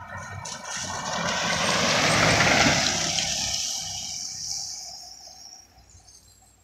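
Mitsubishi box pickup driving past on a wet road: tyre hiss and spray over its engine, swelling to a peak about two and a half seconds in, then fading as it moves away round the bend.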